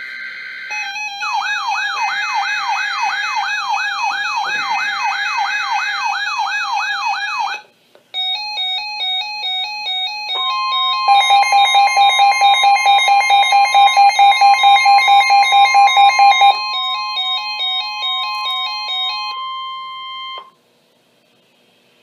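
Several NOAA weather alert radios going off together for a severe thunderstorm warning. One sounds a siren-like alarm, a repeated rising sweep about twice a second mixed with beeps. After a short break, overlapping beeping alarms run over a long steady high tone, and everything stops about twenty seconds in.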